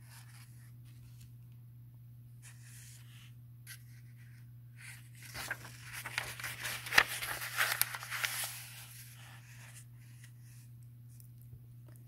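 A page of a paperback book being turned by hand: a paper rustle of about four seconds starting around five seconds in, with a sharp flick of the page near the middle. A faint steady low hum runs underneath.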